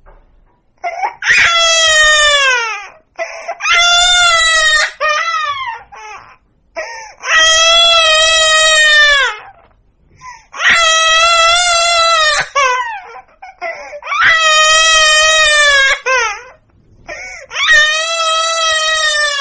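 Baby crying hard: about six long, high wails, each dropping in pitch at its end, with short catching breaths and sobs between them.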